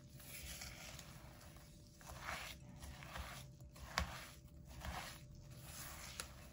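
Silicone spatula scraping and pressing crushed Oreo crumbs and cream cheese against a glass mixing bowl, in soft repeated strokes, with one sharp click about four seconds in.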